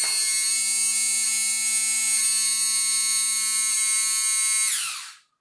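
Small electric water pump of an RC submarine's ballast system running steadily with a high whine as it pumps water into the ballast tank, then winding down and stopping near the end once the tank is full.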